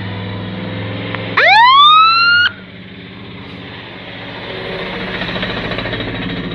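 Fire truck siren giving one short rising whoop of about a second, cut off sharply, over the truck's engine running. The engine grows louder near the end as the truck drives close past.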